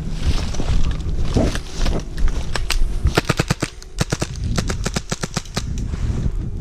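Airsoft guns firing: a few scattered shots, then rapid automatic bursts of sharp cracks about halfway through and again a second or so later, over low wind rumble on the microphone.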